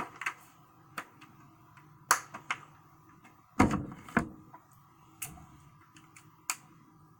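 Small objects being handled on a desk, likely coloured pencils and art supplies. Scattered light clicks and taps, with a heavier thump about three and a half seconds in.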